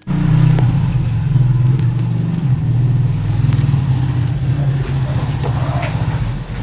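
A motor running steadily with a low rumble, cutting in abruptly.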